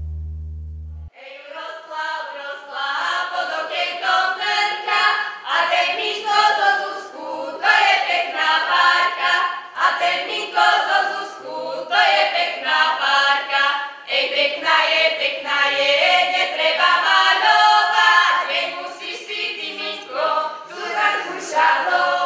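Background music: a choir singing a cappella in phrases with short breaks. It starts about a second in, just after a low sustained tone cuts off.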